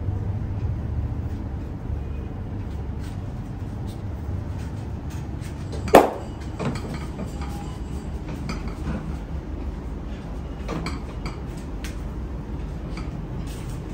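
Hands-on head and neck massage: scattered light clicks and one sharp, loud smack about six seconds in, over a steady low background rumble.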